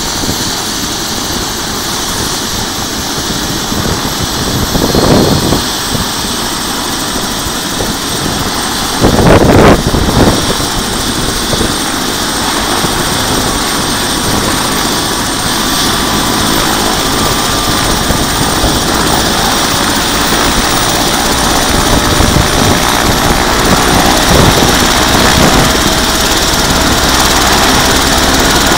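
Turbine helicopter running on the ground with its main rotor turning: a steady engine whine and rotor noise that slowly grows louder and a little higher toward the end. Two short loud rushes of noise break in about five and nine seconds in.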